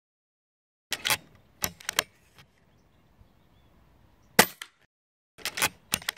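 FX Crown PCP air rifle firing once, a sharp crack about four seconds in. Around it are quick clusters of mechanical clicks from the side lever being worked to chamber the next pellet, one cluster about a second in and one just after the shot.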